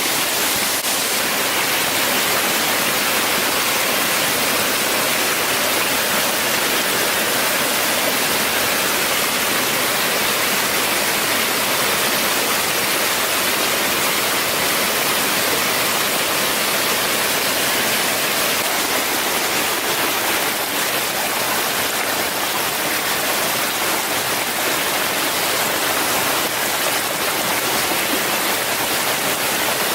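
Steady, even hiss of running water or falling rain.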